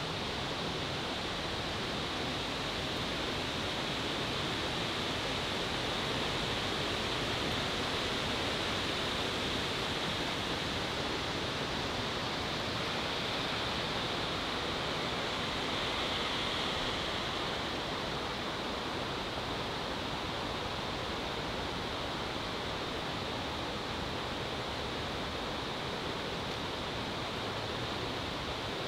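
Steady rushing of falling water from a garden waterfall and stream, an even hiss with no breaks.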